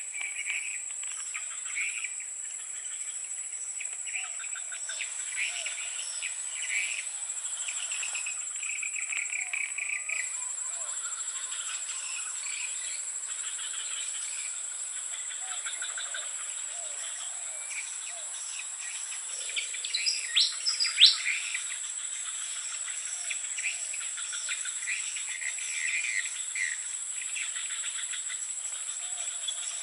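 Forest insects and crickets with a steady high-pitched whine, and bird calls chirping throughout. About twenty seconds in comes a short run of loud, sharp rising whistles.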